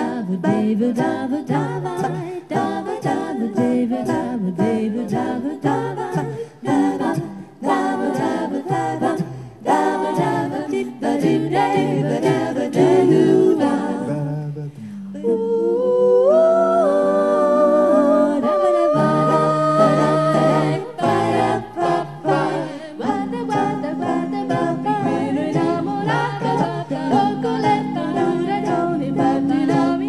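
Mixed men's and women's vocal group singing a cappella into microphones, with a rhythmic backing. About halfway through the rhythm stops for several seconds of long held and sliding notes, then the rhythmic part comes back in.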